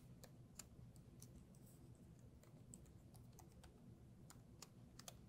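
Faint typing on a computer keyboard: about a dozen irregularly spaced key clicks.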